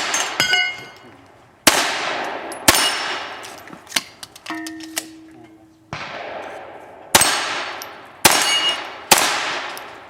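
.22 rimfire shots fired in a string of about six, roughly a second apart, with the clang of steel targets ringing after the hits.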